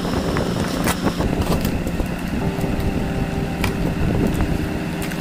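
Steady low rumble running throughout, with a few sharp clicks as scissors cut the packing tape on a cardboard box.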